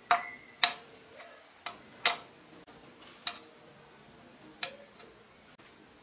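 Six sharp, irregularly spaced clicks and taps of knife handle scales and small copper and brass tube pins being set down on a wooden workbench, the loudest in the first two seconds.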